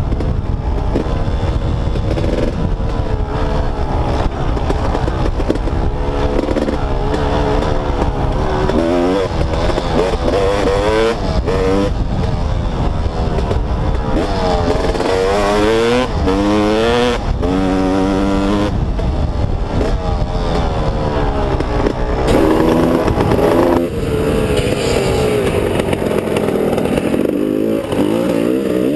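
Two-stroke dirt bike engine, heard from the rider's helmet. It revs up and down over and over, its pitch rising and falling as the throttle is worked along the trail.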